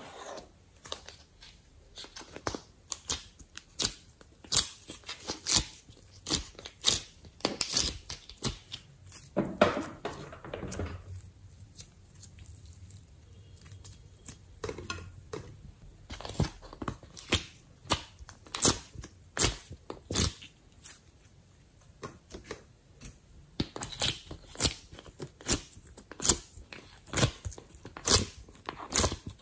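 Hands working slime and soft modelling clay: irregular sticky clicks, crackles and squelches as it is squeezed, pulled and scraped out of its containers, with a longer crackling stretch about ten seconds in.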